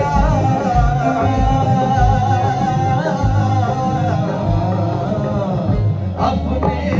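A man singing a long, drawn-out, ornamented melodic line of a Punjabi Sufi song. His voice sinks in pitch toward the end, over instrumental backing with a steady low drum beat. A single sharp hit comes about six seconds in.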